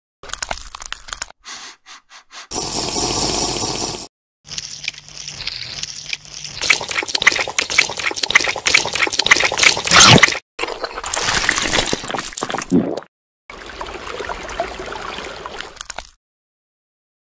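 Stop-motion sound effects: a run of short, separately cut stretches of wet watery noise and crackling clicks, each stopping abruptly. The dense crackling in the middle is the loudest part.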